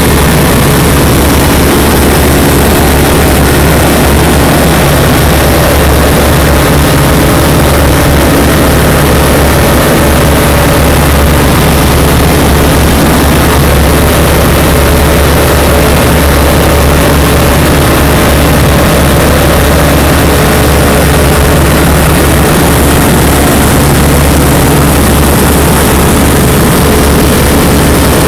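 Tecnam P92 ultralight's engine and propeller running at steady power, heard as a loud, unchanging drone from inside the cockpit.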